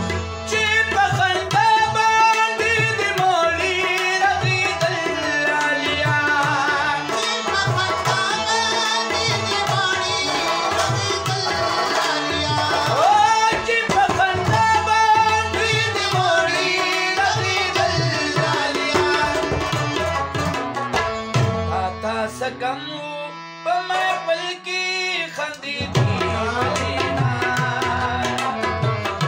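Live Pashto folk song: a man sings over a harmonium and a plucked rabab, with a hand-drum beat underneath. About 23 seconds in, the drum beat drops out for a few seconds before the ensemble comes back in.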